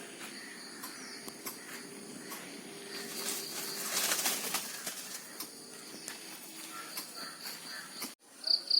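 Outdoor ambience with faint bird calls, among them a low cooing call. A rush of noise swells and fades between about three and five seconds in.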